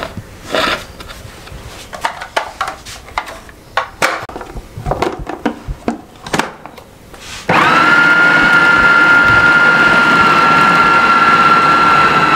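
Electric food processor chopping raw chicken patty mixture. First come scraping, knocks and clicks as the mixture is scooped into the plastic bowl and the lid is fitted. About two-thirds of the way in the motor starts suddenly and runs at a steady, loud whine.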